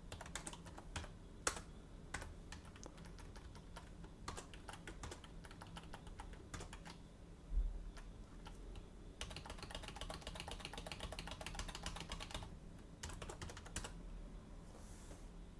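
Computer keyboard typing, faint: scattered key clicks, then a fast, dense run of keystrokes in the middle and a shorter run near the end. A single dull thump sounds about seven and a half seconds in.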